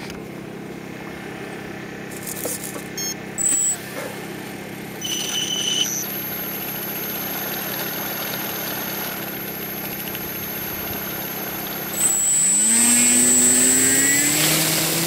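Motors of a radio-controlled Magnus-effect model aircraft with spinning cylinder wings: a steady hum with a few short high tones between about three and six seconds in, then about twelve seconds in the motors speed up with a rising whine, the loudest part, for the take-off run.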